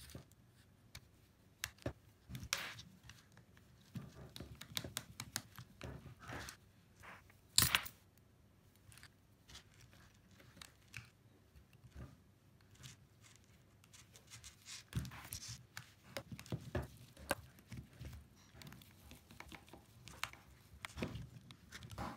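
Small plastic gearbox parts and an electric motor handled and fitted together by hand: scattered light clicks, taps and scrapes of plastic and small metal tools, with one sharper click about a third of the way through.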